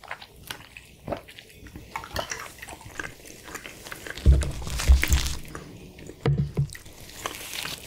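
Close-miked mouth sounds of sipping a drink through a straw and swallowing, with many small wet clicks. Then several heavy low thuds about four to five seconds in and once more about a second later, as a quesadilla is handled on the wooden board and dipped into a bowl of sauce.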